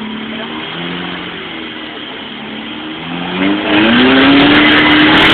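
Four-cylinder engine of an off-road 4x4 running at low revs with a wavering pitch, then revving hard about three and a half seconds in and holding high revs as it powers up a muddy rock ledge.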